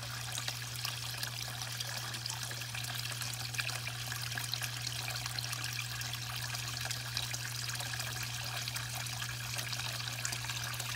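A stream of water pouring into a small garden fish pond, splashing steadily on the surface, with a steady low hum underneath.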